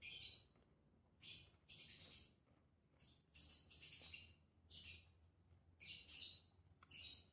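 Small birds chirping faintly in a string of short high chirps, sometimes two or three in quick succession, over a low steady hum.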